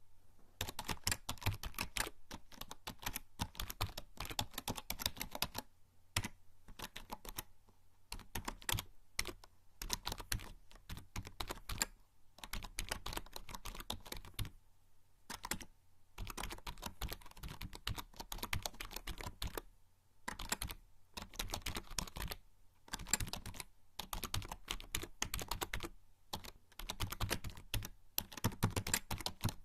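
Typing on a membrane computer keyboard: fast runs of soft key clicks, broken every few seconds by short pauses.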